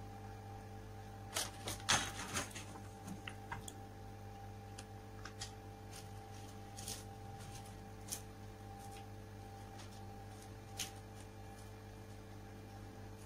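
Hand-handling noises while rice-paper spring rolls are assembled on a kitchen counter: a cluster of crisp rustles and clicks about two seconds in, then a few scattered light clicks, over a steady low hum.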